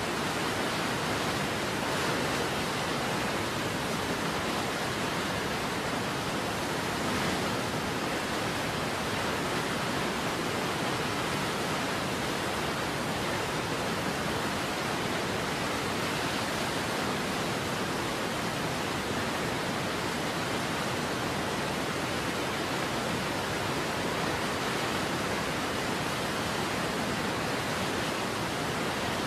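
Steady, even rushing noise of a waterfall, unchanging throughout, with no other sound over it.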